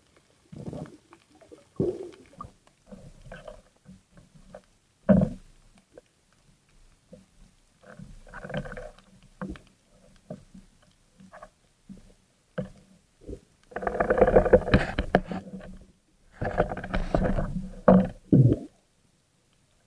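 Muffled underwater knocks and rubbing picked up through a waterproof camera housing as a speargun is handled and its rubber bands are pulled back to reload. There are scattered knocks, then two longer, louder stretches of rubbing and scraping in the second half.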